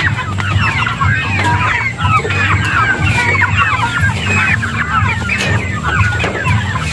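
A flock of chickens clucking and chirping, many short calls overlapping without a break, over a steady low hum.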